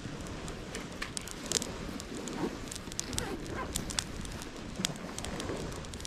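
Irregular sharp crackles and clicks over a steady low rush of wind.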